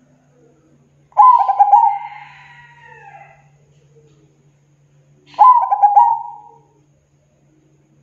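Zebra dove (perkutut) cooing: two calls about four seconds apart, each a quick run of stuttering notes that trails off.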